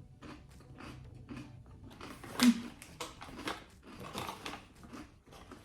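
A person chewing crunchy baked rice crackers close to the microphone: irregular crisp crunches, with a louder one about two and a half seconds in.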